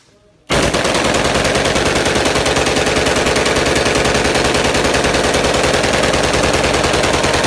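AK-pattern assault rifle firing on full automatic in one long, unbroken burst of rapid shots, starting about half a second in.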